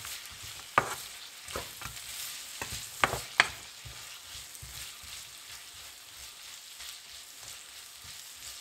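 Wooden spatula stirring and knocking against a non-stick wok as sliced onions and red peppers fry in sesame oil, with a steady light sizzle. Several sharp knocks come in the first three and a half seconds, then mostly the sizzle remains.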